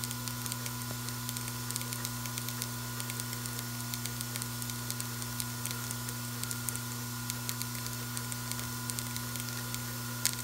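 Vibratory bowl feeder running: a steady low hum from its drive, with constant fine rattling and ticking of small parts moving up the spiral track, and one sharper click near the end.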